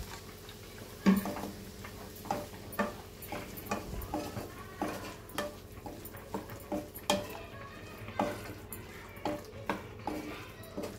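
Wooden spatula stirring and tossing diced potato and cauliflower in a non-stick kadai, with repeated short scrapes and knocks against the pan every half second to a second.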